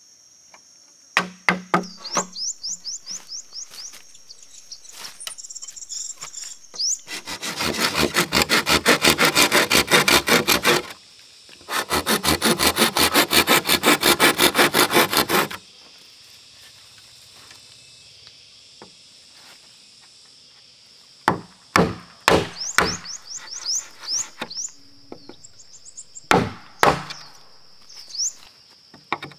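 Folding hand saw cutting into a green bamboo pole in two long runs of fast, even back-and-forth strokes with a short break between them. Before and after the sawing, a bamboo mallet knocks sharply on a chisel being driven into the bamboo, in quick clusters of blows.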